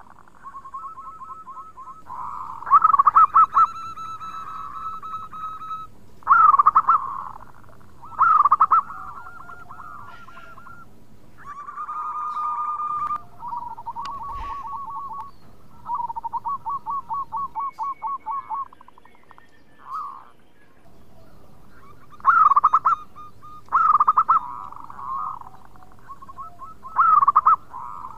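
Zebra dove (perkutut) cooing: rapid stuttering phrases of coos near one pitch, repeated every few seconds, a handful of them much louder than the rest.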